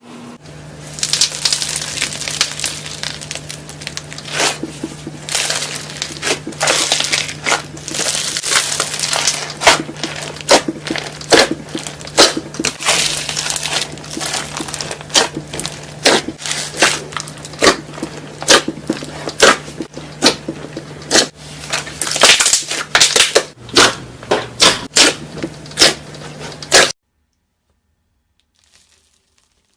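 Crunchy slime being squeezed and pressed by hand: a dense, irregular run of crackles and sharp pops over a faint low hum. It all stops abruptly near the end.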